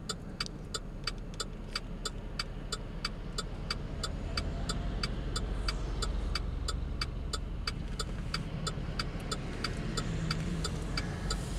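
Vehicle engines running with a steady low rumble, under an even ticking of about three clicks a second from a vehicle's indicator flasher.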